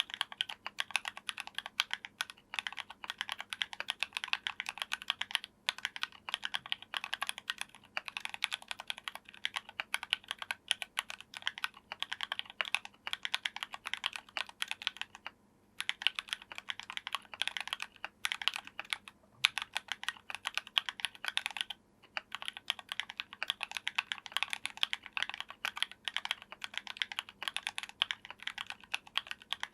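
Typing on a mechanical keyboard with factory-lubed JWK Matcha 68g linear switches, a brass plate and PBT keycaps, in a foam-dampened Tofu60 case. Fast, steady keystrokes with a few short pauses, the longest about halfway through.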